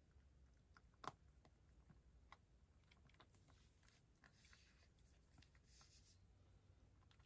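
Faint crunching of a cat chewing dry kibble, a scatter of small clicks with one sharper click about a second in.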